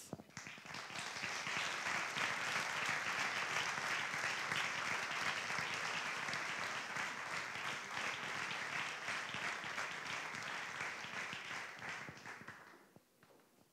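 Audience applauding, building quickly at the start and dying away near the end.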